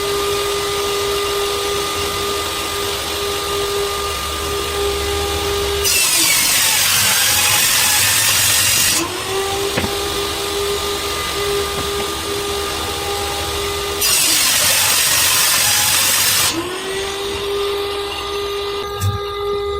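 Electric woodworking power tool: its motor whines steadily, then twice breaks into about three seconds of loud rushing noise as it cuts into the wood, winding back up to a free-running whine after each pass.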